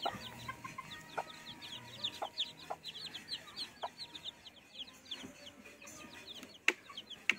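A brood of newly hatched Shamo Asil chicks peeping without a break: many quick, high, falling chirps several times a second. A single sharp click sounds near the end.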